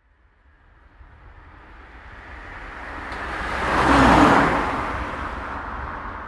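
A motor vehicle passing close by. Its noise builds steadily from nothing, peaks about four seconds in with a brief drop in pitch, then fades away.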